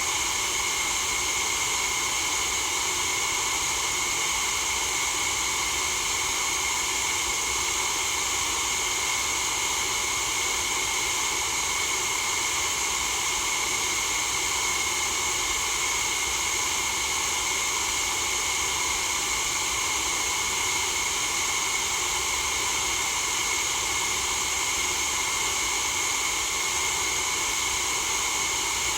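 Steady white noise for sleep: an even, unchanging hiss, brightest in the upper treble.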